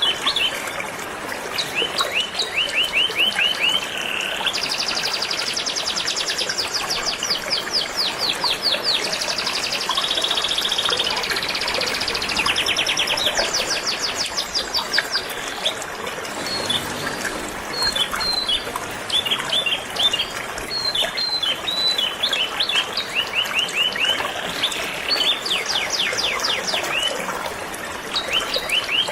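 Canary singing a long, continuous song of rapid trills and chirps, over the steady sound of flowing river water.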